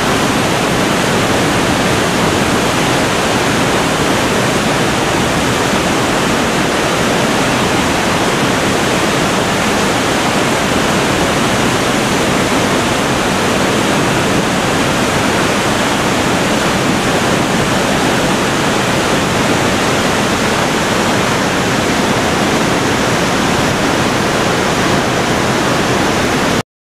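Box Canyon Falls pouring into its rock pool: a loud, steady rush of falling water that cuts off suddenly near the end.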